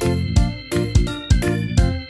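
Background music: a keyboard tune over a steady beat of about two thumps a second.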